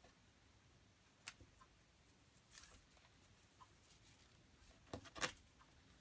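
Faint rustles and clicks of paracord being handled and pulled through as cobra-weave knots are tied on a wooden tabletop, with two louder knocks close together about five seconds in.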